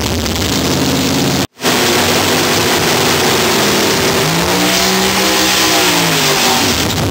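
Chevrolet Nova drag car doing a burnout: the engine revs hard over the hiss of spinning rear tyres, and about four seconds in the pitch climbs and falls back as the revs rise and drop. The sound cuts out briefly about a second and a half in.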